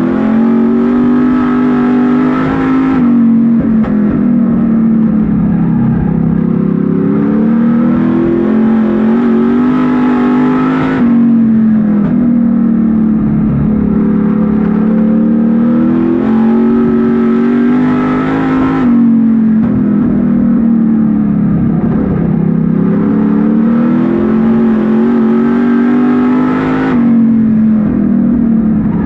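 Street Stock race car engine heard from inside the cockpit at racing speed, loud and continuous. Its pitch drops sharply about every eight seconds as the throttle is lifted for a turn, then climbs steadily again as the car accelerates out.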